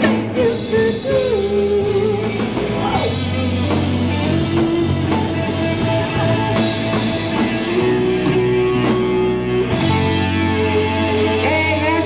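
Live amplified rock band playing: electric guitars and a drum kit under female lead vocals.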